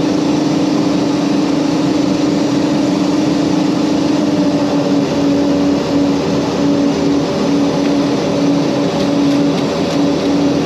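Mitsubishi MU-2's twin Garrett TPE331 turboprops in cruise, heard as a steady drone and hiss with a strong hum. About five seconds in the hum starts to throb in a regular beat.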